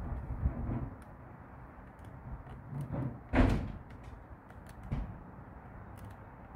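Vinyl reflective tape being peeled and stretched by hand onto glossy plastic bodywork: soft rubbing and handling, with one short, louder rasp of the tape pulling away a little past three seconds in.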